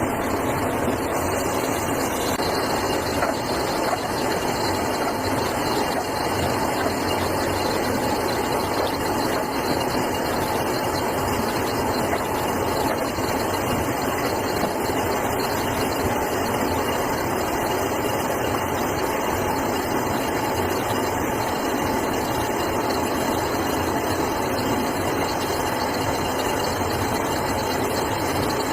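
A workshop machine running steadily, a continuous mechanical whirr with a faint steady tone running through it.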